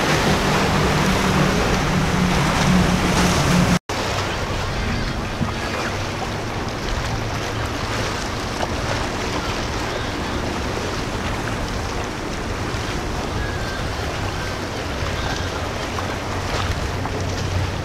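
Powerboat engines droning over rushing water and wind on the microphone. First a boat with several outboard motors runs at speed through surf. After an abrupt cut about four seconds in comes a lower, steady engine drone from a sport boat running through the inlet.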